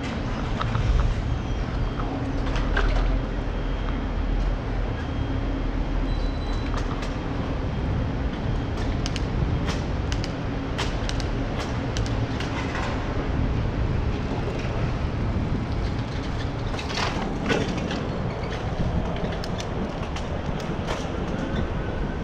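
Steady low rumble of a bicycle being ridden over pavement, with scattered clicks and rattles, thickest about halfway through and again near the end.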